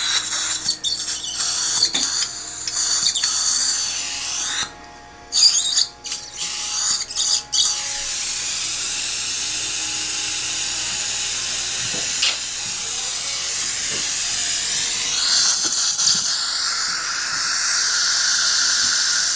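Dental implant surgical handpiece motor whirring with a high whine, stopping and starting several times in the first few seconds, then running steadily and growing stronger near the end as it drives the implant into the upper jaw.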